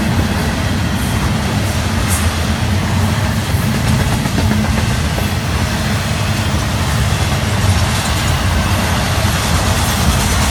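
Florida East Coast Railway intermodal freight cars, double-stack container cars and trailer cars, rolling past: a steady, loud rumble of steel wheels on rail.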